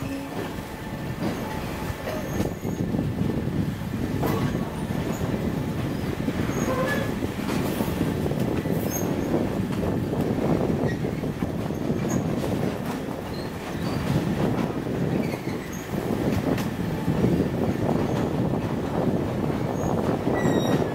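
Passenger train coaches running slowly over a wooden trestle viaduct: a continuous low rumble of wheels on rails with scattered clicks, and a faint high wheel squeal.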